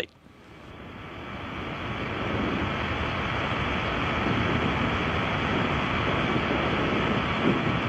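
Steady rushing roar of a Soyuz rocket's first-stage engines, its four strap-on boosters and core engine burning in flight. The roar swells up over the first two seconds, then holds steady.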